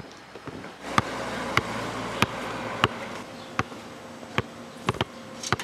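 A series of sharp knocks, about one every half second to second, over a buzzing hum that runs from about a second in to about three seconds in.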